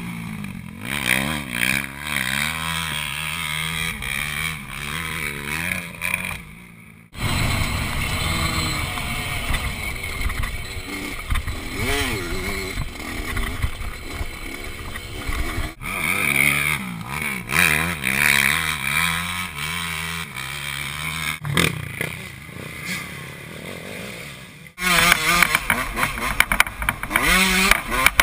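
Off-road dirt bike and quad engines revving up and easing off as they ride a dirt track, the pitch stepping with gear changes. The sound is close to the bike on the onboard shots. It cuts abruptly between clips about seven seconds in and again near the end.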